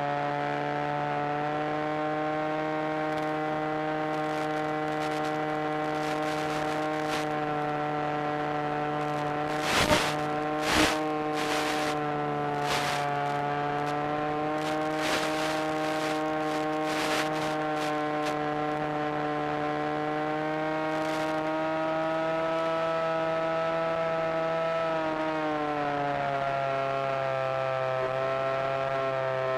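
Electric motor and propeller of an FPV model aircraft running at a steady cruise throttle, heard as a constant pitched whine. Its pitch drops a step near the end as the throttle is eased back. A few short crackles come around ten seconds in.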